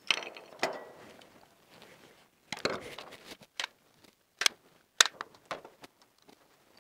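Scattered clicks, snips and rustles of electrical installation wires being handled and worked with a hand tool at a flush wall box while a socket outlet is wired. The sharpest clicks come about four and a half and five seconds in.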